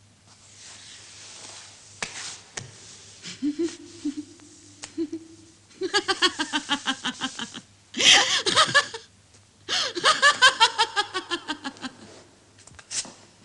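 A person laughing in three runs of quick 'ha-ha' pulses that fall in pitch, the middle run loudest. Before it come a low held voice sound and a few clicks.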